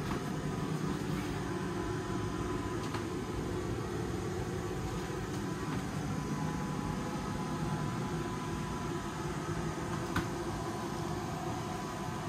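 Steady machinery hum with a few faint, constant high tones above it, and a single light click about ten seconds in.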